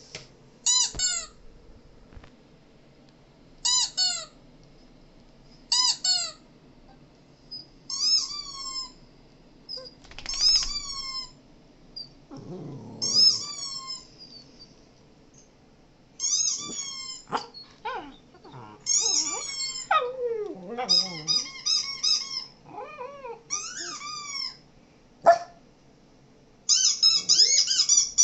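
A series of high-pitched dog whimpers and yelps: short squealing cries, each falling in pitch. They come about every two seconds at first, then faster, and crowd together near the end.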